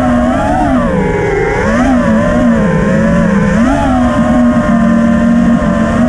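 FPV quadcopter's brushless motors and propellers whining, heard through the onboard GoPro, over a rough rush of air noise. The pitch dips and swells several times in the first four seconds as the throttle is worked, then holds steady.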